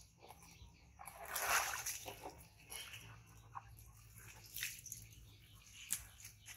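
Water splashing and sloshing in a plastic tub as a baby monkey is bathed and lifted out, water running off it. Several splashes, the loudest about a second and a half in.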